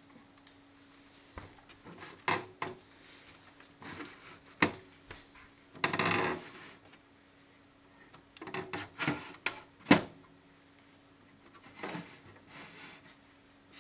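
Hands handling the opened Victor PC-W330 radio-cassette recorder: irregular clicks and knocks of plastic parts, with short scraping rubs, the longest about halfway through. A faint steady hum lies underneath.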